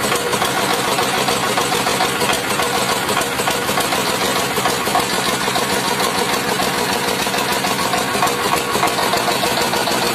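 Single-cylinder stationary diesel engine running steadily with a fast, even beat. It belt-drives a small rice huller that is milling paddy.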